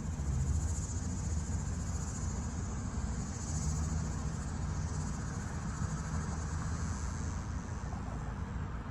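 Insects chirring in a high band that swells and fades every few seconds, over a steady low rumble.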